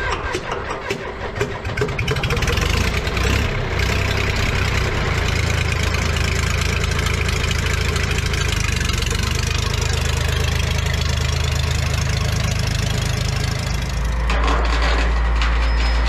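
John Deere 310 backhoe's diesel engine, which has low compression, turning over unevenly and catching about two seconds in, then running steadily. Near the end it cuts abruptly to a different, steadier low engine hum.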